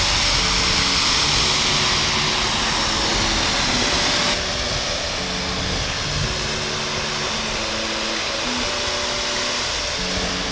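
Pressure washer jet spraying water onto a car's body and glass, a steady hiss that drops and dulls suddenly about four seconds in. Background music with held synth-like notes runs underneath.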